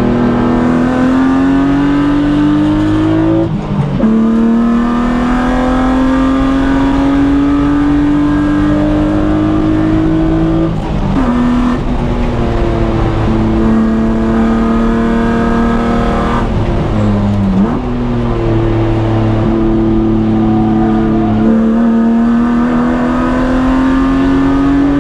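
BMW E36 M3's straight-six engine pulling hard on track, its pitch climbing steadily through each gear and dropping sharply at upshifts about four seconds and about seventeen seconds in. Around eleven seconds in the pitch dips and holds steady for a few seconds before climbing again.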